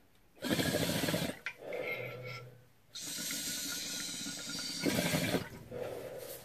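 Water bubbling in a glass beaker bong as smoke is pulled through its four-slit downstem on an inhale, in several pulls separated by short breaks.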